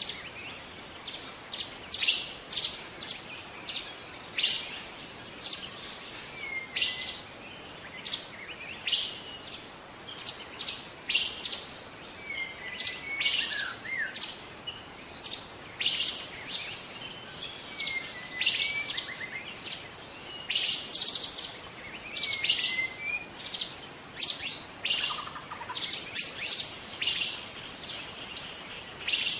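Wild white-rumped shama singing: short high notes repeated about once or twice a second, with a few lower gliding whistles in between.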